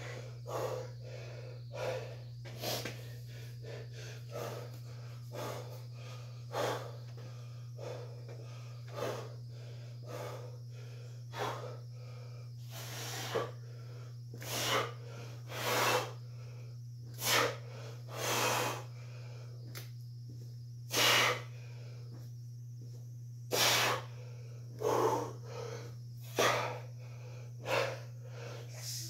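A man breathing hard from heavy lifting: short, noisy exhales, one every second or two, getting louder in the second half.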